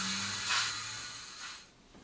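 Slow steam exhaust chuffs from a model locomotive's sound decoder (Zimo MX644D with Mr Soundguy steam sounds, through a 23 mm speaker), two beats about a second apart over a steady low hum. The sound fades away near the end.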